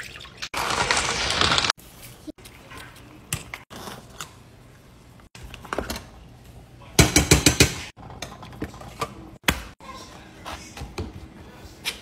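Kitchen prep sounds in quick cuts. A spray of tap water hisses on a glass pot lid for about a second near the start. Scattered clicks and clatter of utensils against dishes follow, with a quick run of about eight knocks around the middle.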